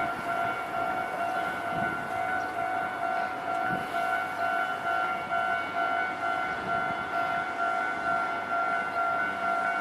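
Warning bell of a Japanese railway level crossing ringing without a break, a steady high-pitched electronic tone.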